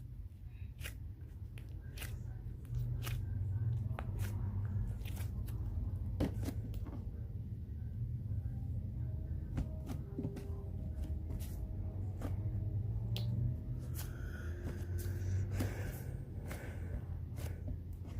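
Butter slime (slime mixed with air-dry clay) being squished and stretched by hand, making irregular sticky clicks and pops.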